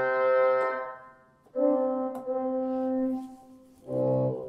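Sampled pipe organ, the Hauptwerk virtual organ using the St Anne's Church, Moseley sample set, played through a studio monitor speaker. Held notes sound and die away, a new one enters about a second and a half in, and a lower, bass-heavy note starts near the end.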